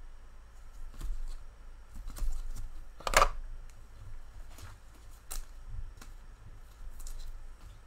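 Trading cards and hard plastic card holders being handled and set down on a tabletop: scattered light clicks and rustles, the loudest a sharp clack about three seconds in.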